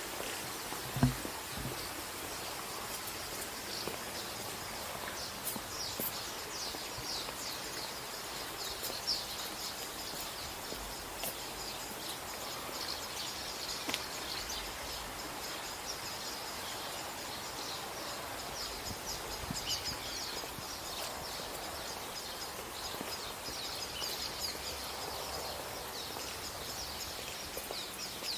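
Small birds chirping in short, rapidly repeated high calls over a steady background hiss of outdoor noise. A single brief thump about a second in.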